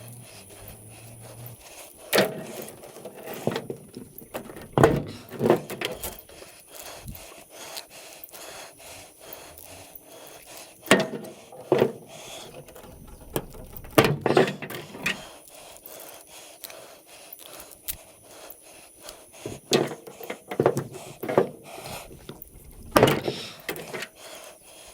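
Scrap metal being handled and sorted: irregular sharp knocks and clanks, some with a short ring, with rubbing and scraping between them.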